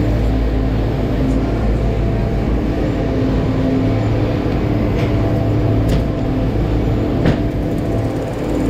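Chairlift terminal machinery running with a steady low hum and rumble, with a few sharp metallic clanks about halfway through and again near the end.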